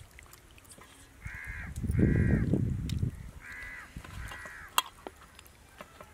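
A crow cawing four times, in two pairs about two seconds apart, with a low rumble under the second caw.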